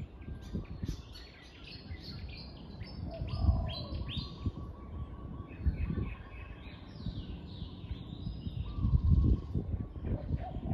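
Spotted dove cooing, one low coo about three seconds in and another near the end, among the quick, busy chirping of small birds. A low rumble comes and goes underneath.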